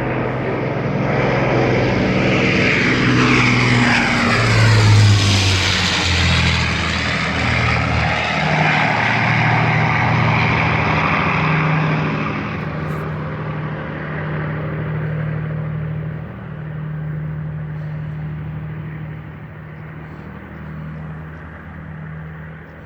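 Piston-engined propeller aircraft flying past low. Its engine drone swells to a peak about five seconds in, then fades steadily as it moves away.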